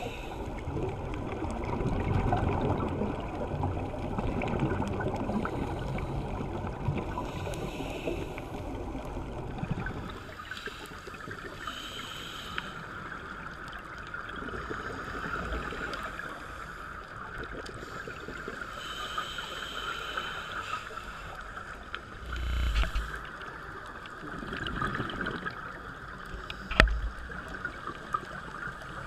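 Underwater sound heard through a camera housing: a muffled rush of water, louder and deeper for the first ten seconds, then a steadier hiss with a scuba diver's regulator breaths and exhaled bubbles coming back about every six seconds. A low thump and a sharp click come in the last few seconds.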